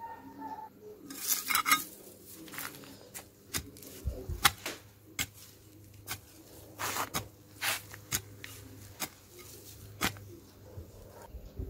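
Garden hoe chopping and scraping stony soil: a run of irregular sharp clinks and scrapes as the metal blade hits earth and stones, with a couple of dull thumps about four seconds in.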